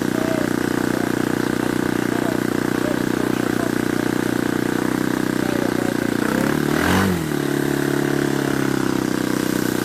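Small RC model-plane engine droning steadily at an even pitch, with a brief swing in pitch about seven seconds in.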